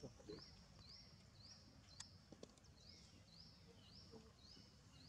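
Faint high animal calls repeated a little under twice a second, each note rising and then holding steady, with a few soft clicks partway through.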